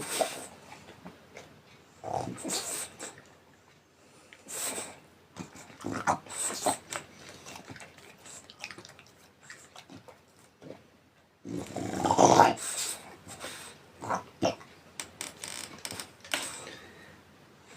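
French bulldog snoring in its sleep: irregular breaths every second or two, the loudest about twelve seconds in.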